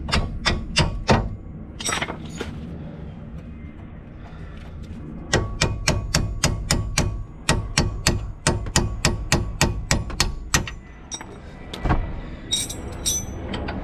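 Rapid metal-on-metal strikes on a seized front control-arm bolt as it is worked loose: a short run at the start, then a long regular run of about four strikes a second, over a steady low hum.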